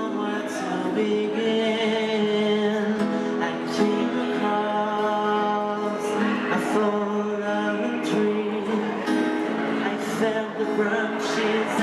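Music: singing over a guitar, held notes moving from one pitch to the next.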